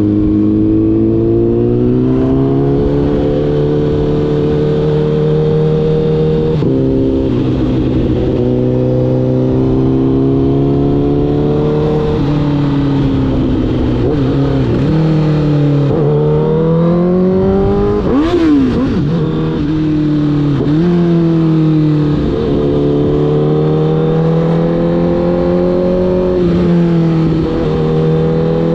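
Honda CBR1000RR inline-four sport-bike engine under way, its pitch holding or climbing slowly between brief drops and quick throttle blips as the rider shifts through the bends. The sharpest rev rise and fall comes about two-thirds of the way through.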